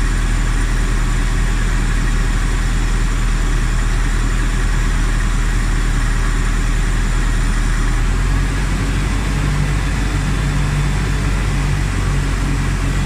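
Toyota Tarago's 2TZ-FE four-cylinder engine idling steadily with the air-conditioning compressor cycled off; about eight seconds in, the low hum shifts and a new steady low tone comes in.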